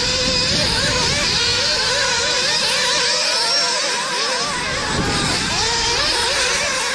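Several nitro RC buggies' small glow-fuel engines racing together. Their high-pitched whines overlap and keep rising and falling as the drivers throttle up and back off.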